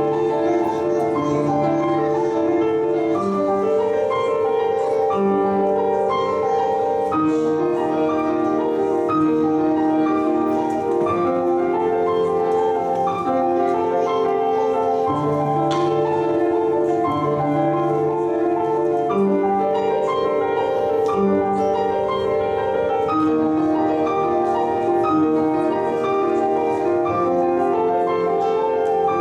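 Instrumental music: a melody of held notes over a lower bass line, at a steady level throughout.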